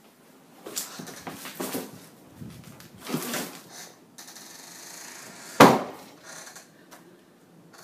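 Scuffing and handling noise as a handheld camera moves down a hallway, then one sharp, loud wooden bang about five and a half seconds in.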